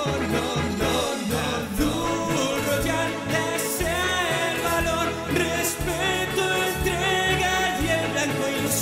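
A Spanish-language song with sung vocals over a steady beat.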